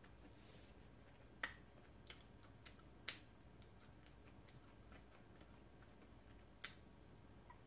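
Near silence with a few faint, sharp clicks and light crackles, the clearest about a second and a half, three, and six and a half seconds in, from hands tearing and handling a loaf of fresh-baked corn bread on a parchment-lined baking tray.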